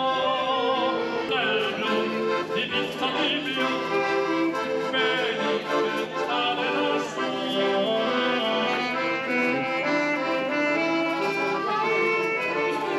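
Accordion-led music with brass, playing steady melodic lines with a wavering vibrato on some held notes.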